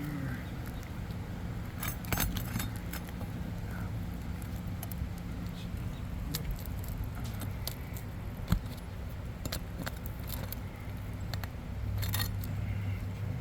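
Clinking and rattling of small hard objects being handled, with scattered sharp clicks and one louder knock about eight and a half seconds in, over a steady low hum.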